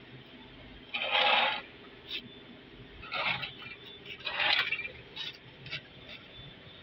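Three short, loud scraping sounds with a few light clicks between them, over a faint steady hum.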